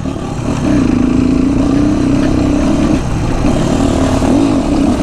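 Motorcycle engine running steadily while being ridden, with a heavy low rumble underneath; the engine note breaks briefly about three seconds in and rises and falls again near the end.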